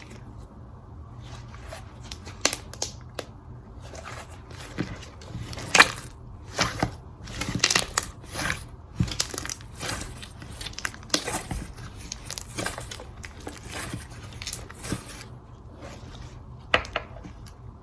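Slime being stretched and squeezed by hand, giving off irregular crackling pops and clicks, thickest in the middle of the stretch.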